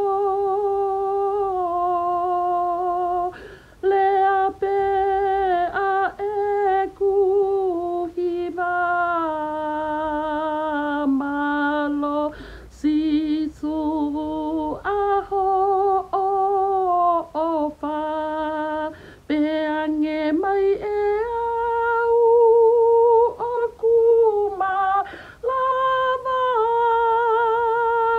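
A woman singing solo and unaccompanied: slow phrases of long-held notes with a wide vibrato, each separated by a short breath.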